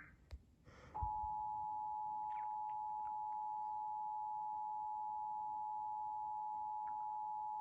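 Emergency Alert System attention signal: a steady dual tone (853 and 960 Hz together) starting about a second in and holding unbroken, marking the start of a required monthly test.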